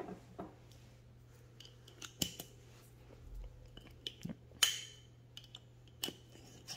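Paper towel being folded into a mason jar lid and the lid handled: scattered light crinkles and clicks, the sharpest a little past halfway, over a faint low hum.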